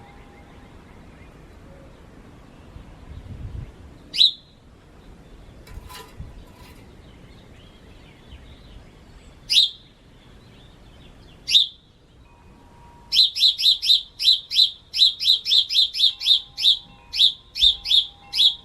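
A bird chirping: a few single sharp chirps several seconds apart, then a fast run of about four chirps a second near the end.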